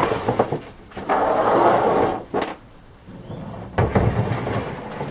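Hands working metal brackets and bolts into place: knocks, a sharp click, scraping and rattling of the parts against the truck's tray as the bolts are hand-tightened.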